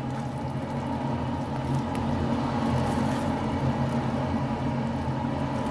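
Steady low hum of a running kitchen appliance, such as a cooktop or range-hood fan, under a pan of thick mushroom cream sauce being stirred with a spatula, with a couple of faint ticks a few seconds in.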